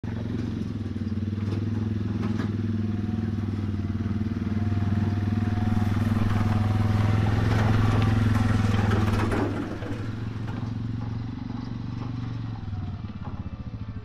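Quad bike engine running as it drives past towing a wood chipper. It is loudest as it passes close, about eight seconds in, then drops away quieter and more distant.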